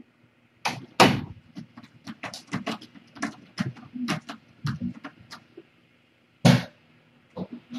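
Cat litter being scooped: a plastic scoop scraping and knocking in the litter box in about fifteen irregular strokes, with louder scrapes about a second in and again about six and a half seconds in.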